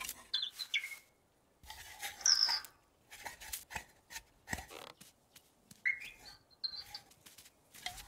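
Sparse, quiet cartoon sound effects for a small bird: a few brief high chirps and peeps, with soft little taps and rustles between them.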